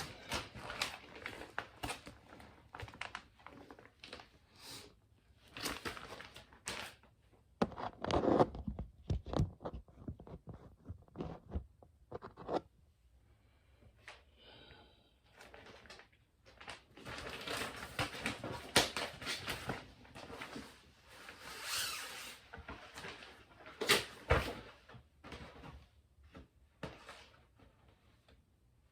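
Irregular handling noises: rustling, clicks and knocks of things being picked up, moved and set down, with a couple of louder knocks about eight seconds in and near the end.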